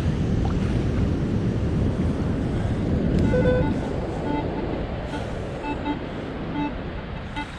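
Steady rush of surf and wind on the microphone, with a metal detector giving several short beeps on a target from about three seconds in.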